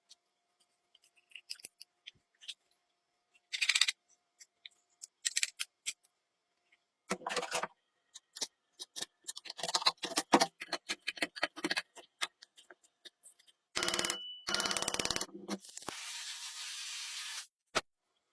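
A hammer drill being handled, with clicks and rattles, then short runs of the drill: a rapid, even hammering about fourteen seconds in, followed by a steady hiss.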